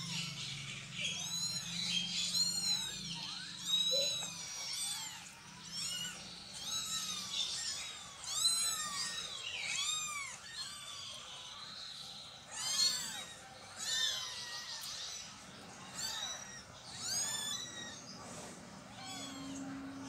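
Young kittens mewing: a steady string of short, high-pitched cries that rise and fall in pitch, about one or two a second, some overlapping.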